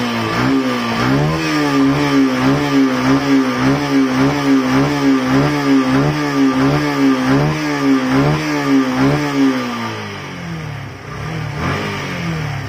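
Yamaha Fazer motorcycle's single-cylinder engine revved with quick, even throttle blips, about two a second, then dropping back to a lower idle about ten seconds in.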